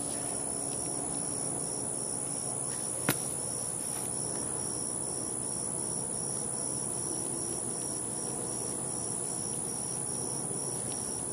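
Crickets chirping: a steady high trill, with a second chirp pulsing about two or three times a second. One sharp click sounds about three seconds in.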